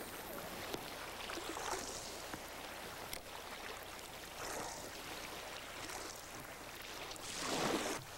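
Small lake waves lapping, a soft hiss of water that swells and fades every second or two, with a louder swell near the end.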